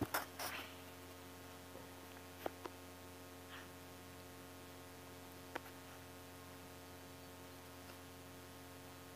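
Faint, steady electrical hum made of several unchanging tones, with a few sharp clicks and knocks of the phone being handled at the start and two single clicks later on.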